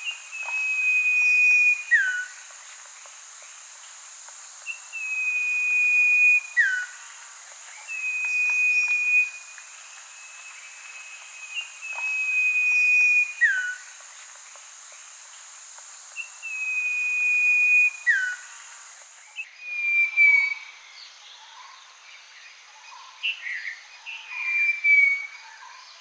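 A bird repeats one call about every three to four seconds: a long, level, high whistle that swells in loudness and ends in a quick downward slur, over a steady high-pitched hiss. About three-quarters of the way in, the recording changes to a busier mix of short, varied chirps and whistles.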